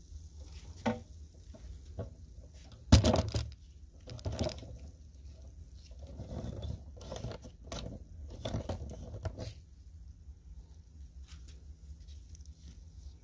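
Liquid splashing and sloshing in a plastic basin as a gloved hand moves an axe head through a foamy bath, with scattered knocks, the loudest a sharp one about three seconds in. It grows quieter after about ten seconds.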